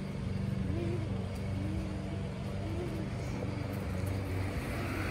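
Steady low motor hum with faint wavering voices in the background.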